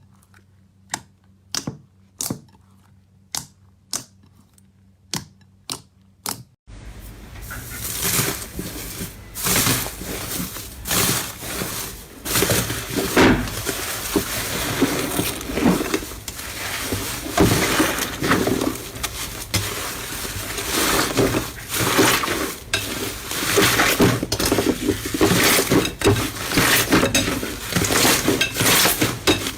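Sharp single clicks, about one or two a second. About six seconds in, these give way to dense, continuous crackling and crunching, as of crunchy slime being squeezed and pressed.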